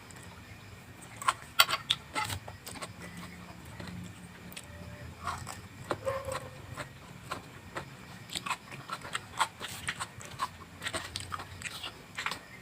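A person eating vegetables: irregular crunching and chewing, with small clicks and scrapes.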